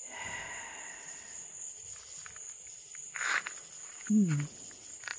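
Evening insect chorus: a steady, high-pitched drone. A brief rustle comes about three seconds in.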